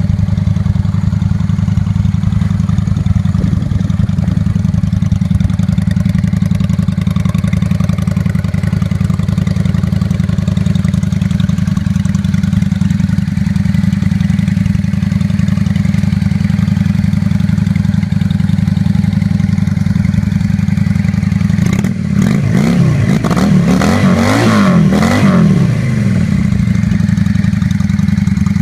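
Honda Shadow 600 bobber's V-twin engine idling steadily, then revved in several quick blips about three quarters of the way through, the pitch rising and falling.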